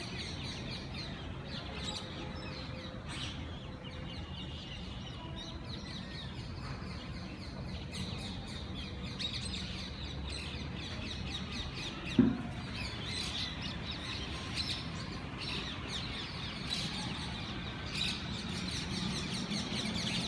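Parrots chirping and tweeting continually, many short high calls overlapping, with one short, louder thump about twelve seconds in.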